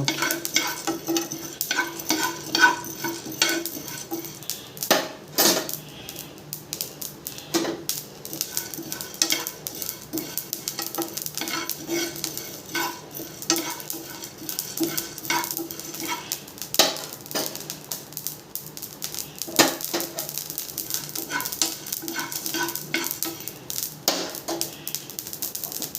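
Black peppercorns and cumin seeds roasting in a pan, stirred with a spoon: irregular scraping and clicking of the spoon against the pan, with the seeds crackling as they heat.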